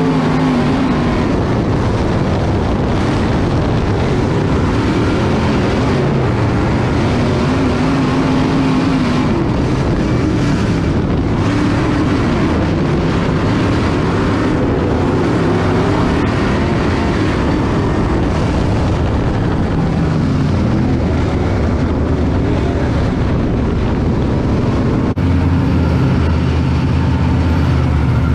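Dirt late model race car's V8 engine running at low track speed, heard from inside the cockpit, its note rising and falling through the corners. Near the end the engine drops to a lower, steadier note as the car slows.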